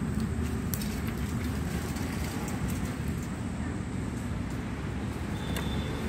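Steady road traffic noise, low and even, with a few faint clicks over it.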